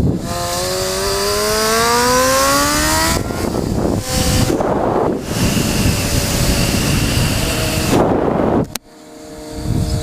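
Motorcycle engine accelerating hard, its pitch rising steadily for about three seconds, then breaking off briefly a couple of times as it shifts and pulls again. Near the end the sound cuts away sharply and a steadier, lower engine note is left.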